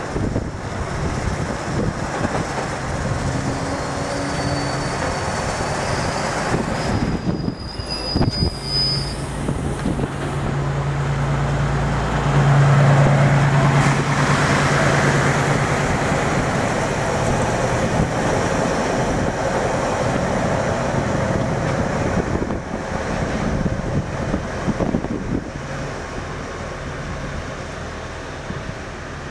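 A yellow track maintenance vehicle's engine and wheels run along the rails, swelling to their loudest as the vehicle passes beneath, about halfway in, then easing off as it moves away. A thin high squeal sounds for a few seconds in the first third.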